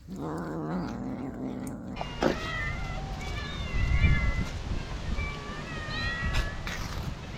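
Several hungry stray cats meowing at once: many overlapping, wavering high calls from about two seconds in, after a lower, drawn-out call at the start.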